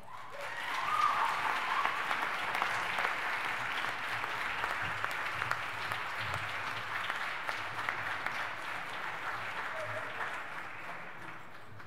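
Audience in a large hall applauding, the clapping building up over the first second and dying away near the end.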